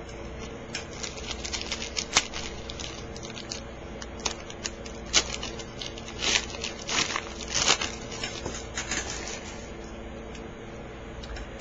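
Trading-card pack wrapper crinkling and tearing as it is opened, with cards handled and slid against each other: a run of irregular crackles and soft clicks over a faint steady hum.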